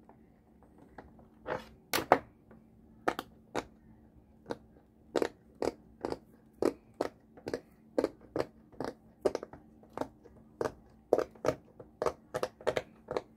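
Silicone bubbles of a large square pop-it fidget toy being pressed in by fingers one after another, giving a long, uneven string of sharp pops, two or three a second.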